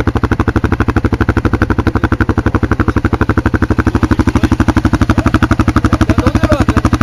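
ATV engine idling close by, a steady, even pulse of about ten beats a second that holds the same speed throughout.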